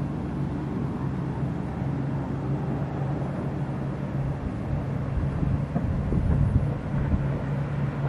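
Outdoor wind buffeting the microphone as a low rumble that swells about five to seven seconds in, over a steady low hum.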